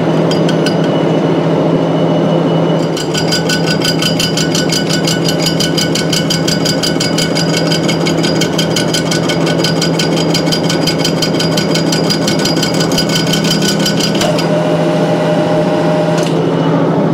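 Metal lathe running with a steady motor hum while a carbide cutting insert takes an interrupted cut. Its tool hits the work in a rapid, even clatter that starts about three seconds in and stops near the end. This is a hard test that slightly chips the new insert.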